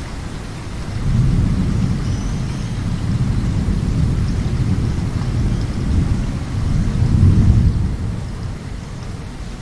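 Heavy rain falling steadily while a long roll of thunder rumbles in about a second in, swells to its loudest around seven seconds in, then dies away.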